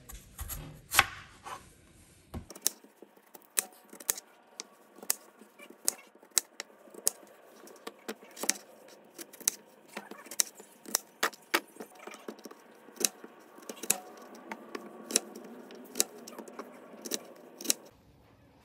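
Chef's knife chopping peeled raw potatoes on a plastic cutting board: a run of sharp knocks as the blade goes through and strikes the board, about one or two a second, stopping near the end.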